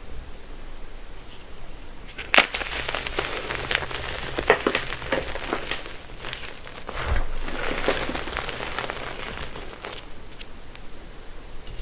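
Gym chalk being crushed and crumbled, with sharp cracks about two and a half and four and a half seconds in and a longer gritty crunch a little past the middle.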